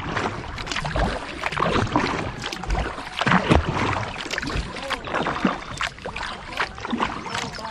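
A kayak being paddled: the paddle blades splash into the water and drip in an irregular run of strokes.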